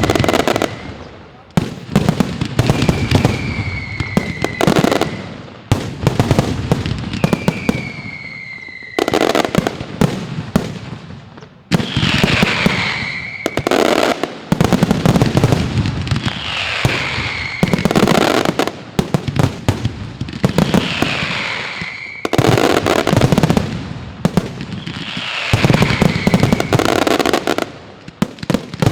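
Zena Trophy firework going off in repeated volleys, roughly one every two seconds. Each volley has a short whistle falling in pitch, then a dense burst of cracks and bangs.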